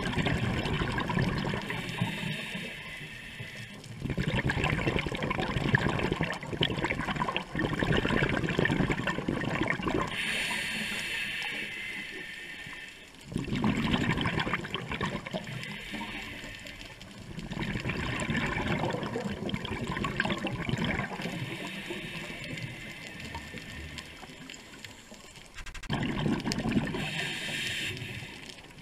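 Scuba diver's breathing through a regulator, recorded underwater: exhaled bubbles rush and gurgle in bursts a few seconds long, about six breaths in all, with short quieter gaps between them.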